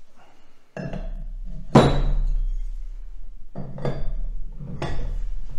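Steel combination wrenches knocking and clinking against each other and against a brass lance-holder fitting as they are set on it for tightening. There are a handful of sharp metallic knocks, the loudest just under two seconds in.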